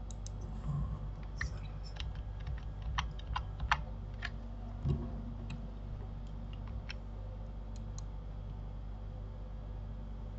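Scattered clicks of a computer keyboard and mouse, busiest between about one and four seconds in, then sparser, over a steady low hum.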